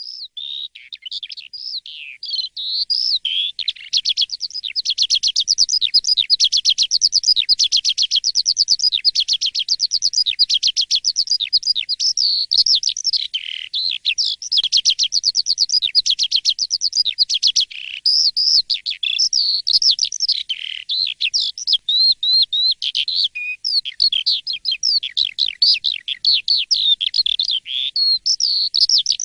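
Jalak suren (pied starling) singing a long, unbroken song of rapid, varied chirps and whistles. A fast, rattling trill runs through much of it.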